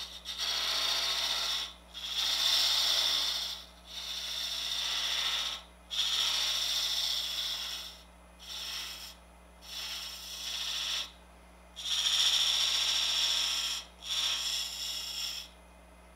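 A small-radius parting tool cutting into spalted wood spinning on a wood lathe: a hissing scrape in repeated passes, about eight or nine cuts of a second or two each with short pauses between them, over a steady low hum. The tool is putting a small radius on a sharp shoulder.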